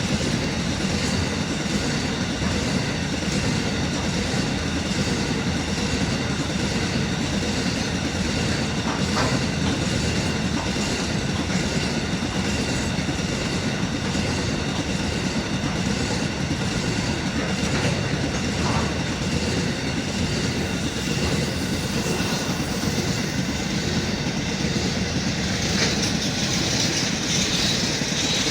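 Empty grain train wagons rolling past on the rails: a steady rumble with a rhythmic clickety-clack of wheels over rail joints. There is some faint high wheel ringing, which grows brighter near the end.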